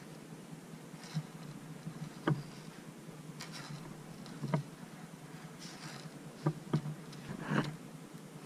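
Stainless steel leader wire and a treble hook being twisted by hand close to the microphone: a handful of sharp little clicks and brief scraping rustles, strongest about two, four and a half, and near seven and a half seconds in, over a low steady hum.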